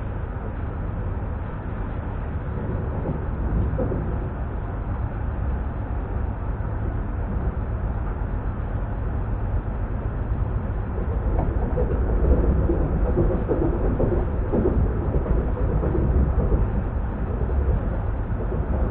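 ES2G Lastochka (Siemens Desiro RUS) electric train running at speed: a steady low rumble of wheels on rail, getting somewhat louder in the second half.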